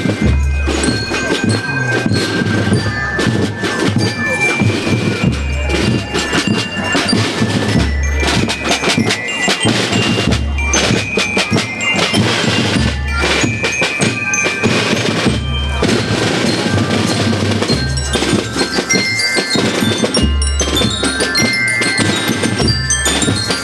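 School rhythm band playing a march: snare drums and bass drums beating steadily, with bell lyres ringing out the melody.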